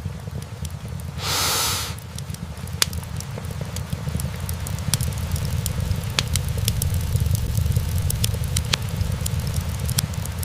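Wood fire burning in a fireplace: a steady low rumble with scattered sharp crackles and pops from the logs. About a second in, a brief loud hiss lasts under a second.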